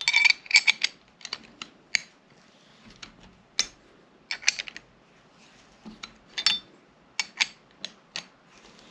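Glock rear-sight pusher tool being turned to drive the rear sight out of the slide's dovetail: irregular sharp metallic clicks and ticks, several in quick succession at the start, then scattered ones, some ringing briefly.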